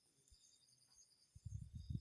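Faint, steady insect chirping in a high register. From about one and a half seconds in, low rumbling bursts start and become the loudest sound.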